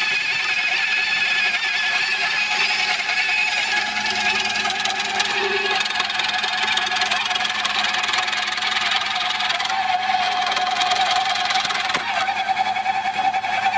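Hydraulic auger running steadily: a continuous machine whine made of several steady tones, its main tone rising slightly about ten seconds in.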